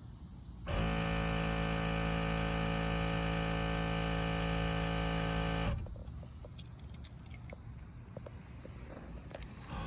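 Rivian R1T's onboard air compressor starts abruptly about a second in, runs with a steady hum for about five seconds, then cuts off suddenly. A few faint clicks follow.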